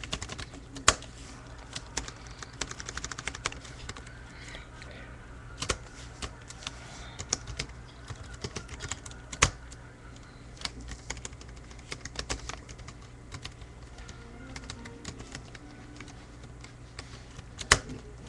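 Typing on a computer keyboard: irregular bursts of keystrokes with quick runs of repeated key presses, and three louder single key strikes, about a second in, near the middle and near the end.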